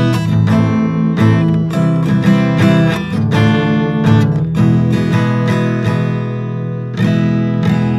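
Acoustic guitar playing a slow instrumental piece, notes plucked and strummed in turn and left to ring, thinning out and fading near the end.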